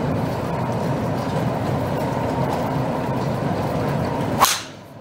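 Steady background noise with a faint hum, then a driver's clubhead striking a teed golf ball about four and a half seconds in: one sharp impact, the loudest sound here.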